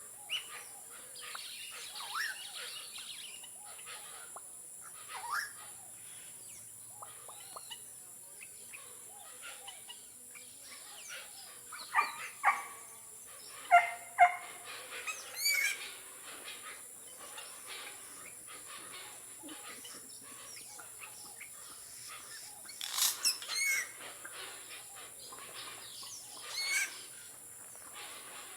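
Yellow-rumped caciques calling, a varied run of whistles, warbles and sharp notes with louder outbursts around the middle and again a few seconds before the end. The birds are said to call like this when they have eggs.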